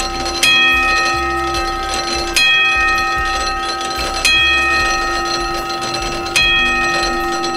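Homemade barn clock, built from old farm-machinery gears, striking its bell: four hammer blows about two seconds apart, each ringing on into the next.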